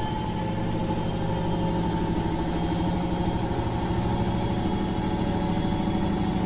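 Washing machine running with a steady, even hum and a low drone, kept going as soothing white noise for a baby's sleep.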